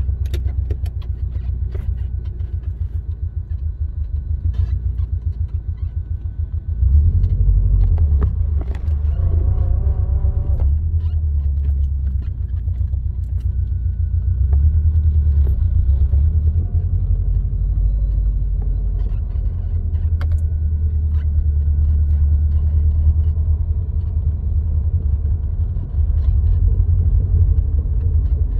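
Low, steady road and engine rumble inside the cabin of a moving car, growing louder about seven seconds in as the car picks up speed.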